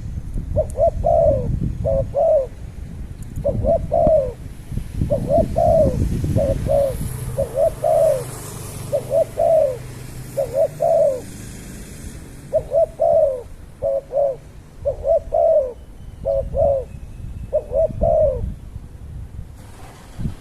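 A bird calling a long series of short, low cooing notes, mostly in pairs, with a pause about midway, over a low rumble.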